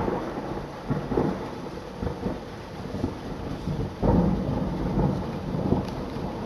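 Thunder rumbling over falling rain, with a louder rolling peal that starts about four seconds in.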